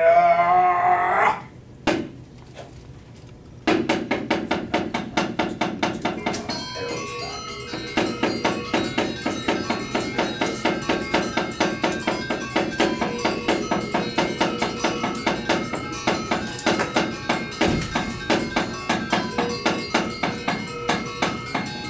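A brief loud vocal cry, then a knock; from a few seconds in, Balinese shadow-puppet music of struck metallophone bars plays in a quick, even pulse of ringing tones.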